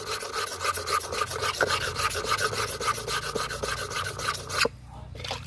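A dull scissor blade held flat and rubbed in quick, even back-and-forth strokes on a wet sharpening stone, scraping steadily; the strokes stop abruptly near the end.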